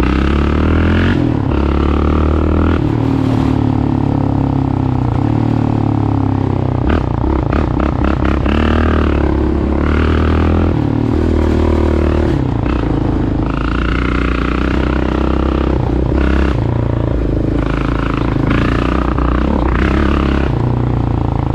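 Yamaha Raptor 700R ATV's single-cylinder four-stroke engine running under way, its pitch holding and then stepping up and down as the rider works the throttle and gears. Short clatters and knocks come from the rough road in the middle.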